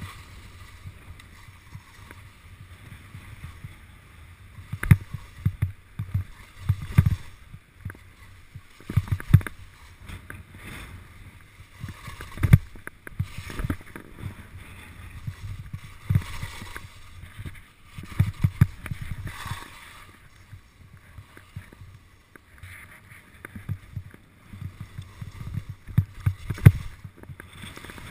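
Skis scraping and chattering over packed, bumpy snow on a mogul run, with irregular low thumps as the skis hit and absorb the bumps.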